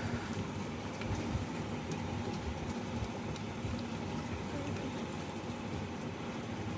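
Onions frying in hot oil in a pan, a steady sizzle with a few faint crackles.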